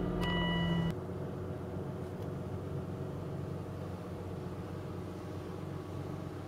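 Aston Martin DB9's V12 idling steadily just after start-up, heard from inside the cabin. A high steady tone stops about a second in, and the engine settles into a quieter, even idle.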